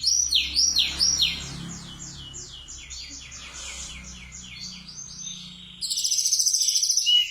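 A tledekan gunung songbird singing a rapid run of repeated sweeping whistled notes. About six seconds in it breaks into a louder, fast, buzzy high trill. Its song is filled with phrases learned from a sikatan londo.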